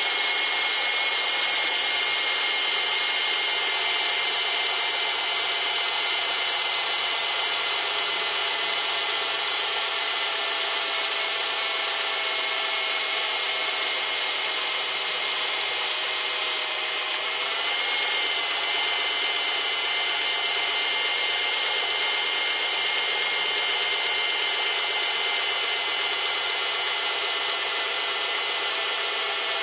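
Subaru EJ253 2.5-litre flat-four engine running steadily, recorded close up, a busy whirring with a brief dip in pitch about two-thirds of the way through.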